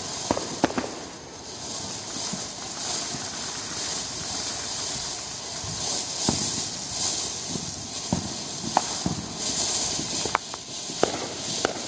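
Ground firework fountain burning with a steady hiss of sparks, broken by scattered sharp crackling pops from its crackle stars, about eight of them.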